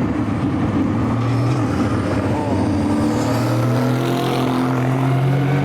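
Race car engines running hard at speed. The engine notes are steady, and a second note gradually rises in pitch through the second half as a car accelerates.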